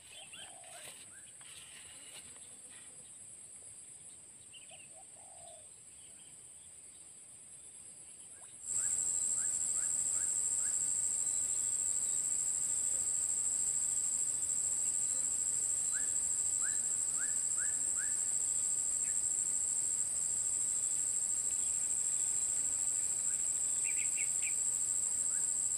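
Steady high-pitched insect drone that comes in suddenly about nine seconds in, with a bird calling over it in short runs of quick rising chirps, four or five at a time.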